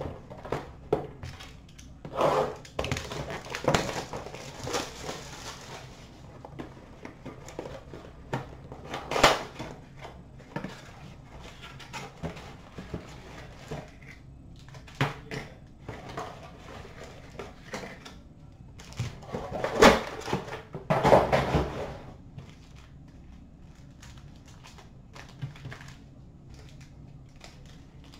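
Cardboard retail box of Upper Deck hockey card packs being handled and opened, its flaps tearing and the foil pack wrappers rustling and crinkling, with scattered light clicks and knocks on the glass counter. The loudest tearing and rustling comes a couple of seconds in, again around a third of the way in, and twice about two-thirds through, then only light handling.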